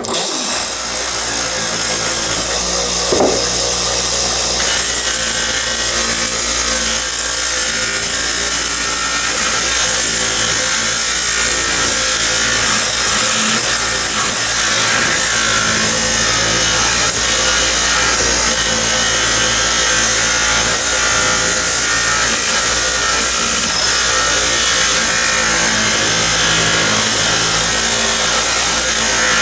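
Electric bench buffer running, with the steel blade of a railroad-spike froe pressed against its spinning cloth buffing wheel to polish it toward a mirror finish: a steady hiss over the motor's low hum.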